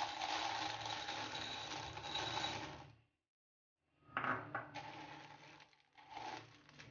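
Dry macaroni pasta rattling as it is poured from a glass bowl into a pan of sauce. After a brief silence, a spatula clicks and scrapes in the pan as the pasta is stirred in.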